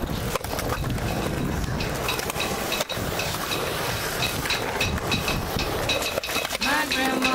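Skateboard wheels rolling over the concrete of a skatepark bowl: a steady rumble with a few sharp clacks from the board.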